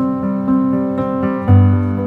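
Background music: a keyboard piece of held notes, with a louder new low chord coming in about one and a half seconds in.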